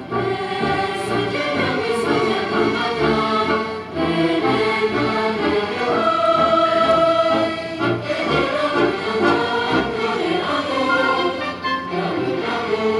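Symphony orchestra playing with a choir singing over it, with one long held note about halfway through.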